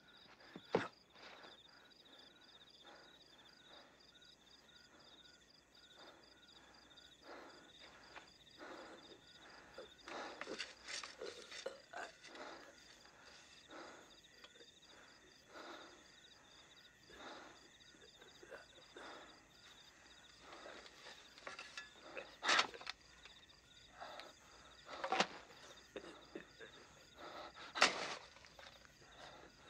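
Crickets chirping steadily, with scattered scrapes and thuds of a shovel working loose soil, the loudest few in the last several seconds.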